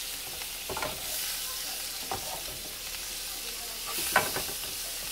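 Oyster mushrooms sizzling steadily in melted butter in a frying pan, with a wooden spatula stirring them and knocking or scraping against the pan a few times, most sharply about four seconds in.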